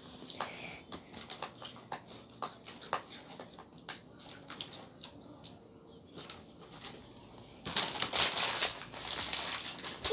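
Ballpoint pen scratching and tapping on a paper worksheet as a child traces and colours, in small irregular ticks, then louder paper rustling near the end.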